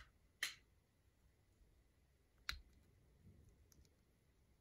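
Plastic LEGO bricks clicking as they are pressed together by hand: two sharp clicks about two seconds apart, with faint small ticks of the pieces being handled between them.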